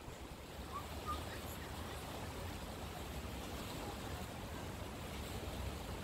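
Fast, shallow river water rushing steadily over a stony bed.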